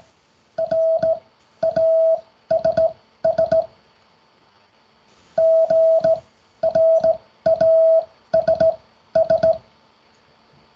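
Morse code sidetone, a steady mid-pitched beep keyed by hand on a straight key into dots and dashes. It spells the word 'grass' (--. .-. .- ... ...), then repeats it after a pause of about two seconds.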